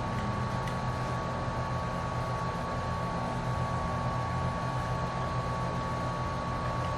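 Steady background noise: an even hiss with a low hum and a thin, steady high whine.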